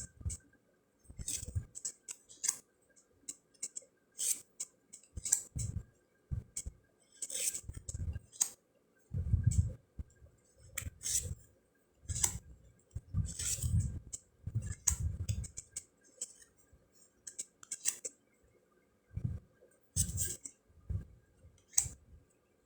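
Round cardstock fortune cards being flipped and slid one at a time, with crisp swishes and clicks and soft dull taps at irregular intervals.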